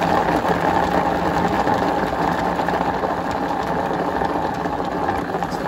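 Mueller food chopper's motor running steadily, its blades whirring through tomato, onion, red pepper and cilantro.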